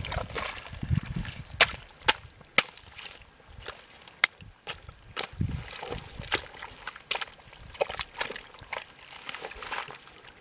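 Hands sloshing and squelching through shallow muddy water, with frequent sharp snaps and crackles as weed stems and roots are pulled up and broken.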